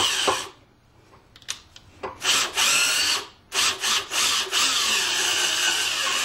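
Cordless screw gun driving a self-tapping screw into the thin sheet-metal front bumper beam. The motor starts and stops several times, then runs steadily for about two seconds near the end as the screw goes home.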